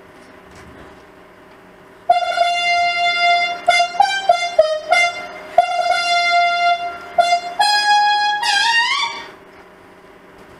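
A trumpet fanfare starting about two seconds in: a run of loud held notes changing pitch, some short and some long, ending in upward slides near the end.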